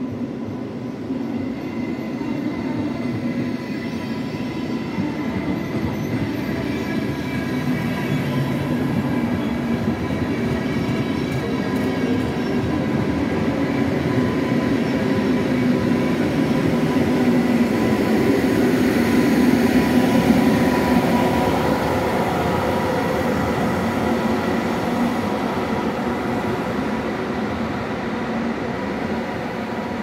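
ÖBB class 1144 electric locomotive hauling an empty intercity train past: steady rumble of wheels on rail with a steady high whine, the locomotive's traction blowers that earned the class its nickname 'Staubsauger' (vacuum cleaner). It grows louder to a peak about two-thirds of the way through, then eases off.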